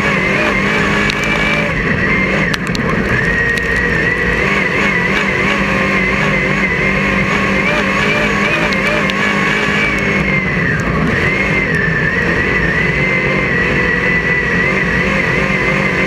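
Crate-engined dirt late model racing, heard from inside the cockpit: the engine runs hard and steady, its pitch rising and falling with the throttle, with a dip and recovery about two-thirds of the way through.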